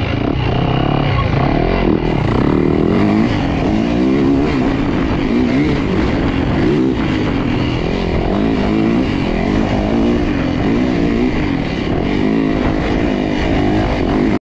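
Dirt bike engine revving up and down over and over, as when ridden hard through turns and gears. The sound cuts off abruptly near the end.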